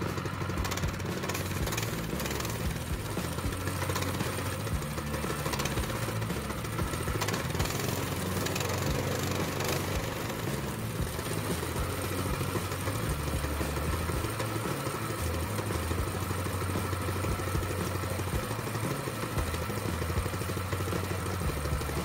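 Harbor Freight Predator 212 single-cylinder four-stroke engine on a go-kart running steadily. It starts right up and keeps running now that its clogged carburetor has been cleaned.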